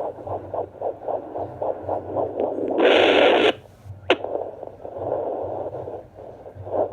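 Fetal Doppler speaker giving a fast whooshing pulse of about four beats a second: the heartbeat of an unborn puppy inside a pregnant Boston Terrier. About three seconds in, a loud burst of noise cuts across it, followed by a sharp click and a stretch of steady whooshing. The pulse returns near the end.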